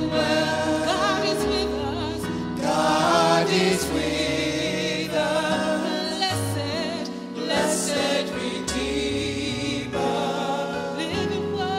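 Gospel worship song: several singers on microphones singing together in long, held lines over electric keyboard accompaniment.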